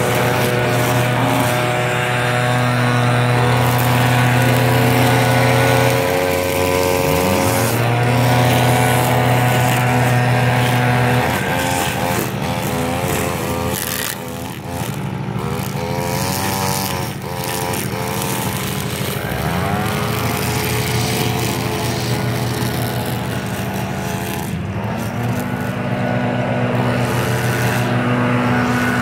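Gas string trimmer engine running at high throttle, dropping in pitch and revving back up several times as the throttle is eased and squeezed while edging grass.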